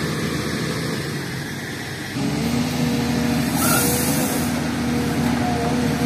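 SDLG hydraulic excavator's diesel engine running; about two seconds in it picks up and holds a steady, higher note as the machine lifts and swings a full bucket of soil. A short hiss comes a little past the middle.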